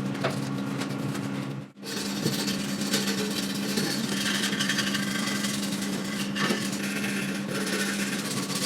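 Continuous abrasive rubbing and scraping of a part being cleaned or sanded, over a steady motor hum. The sound drops out briefly about two seconds in, then resumes.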